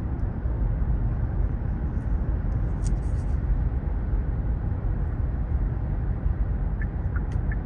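Road and tyre noise inside the cabin of a moving Kia EV6 electric car: a steady low rumble with no engine sound, and a few faint clicks.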